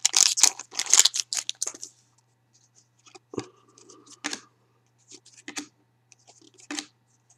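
Foil wrapper of a Panini Titanium hockey card pack being torn open and crinkled for the first couple of seconds, then a few soft clicks and slides as the trading cards are fanned through by hand.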